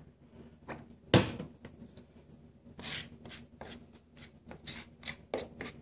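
Short rubbing and scraping strokes of a small hand tool spreading wood glue over a kerfed birch board and working it into the kerf cuts, starting about three seconds in and coming faster near the end. One sharp knock about a second in.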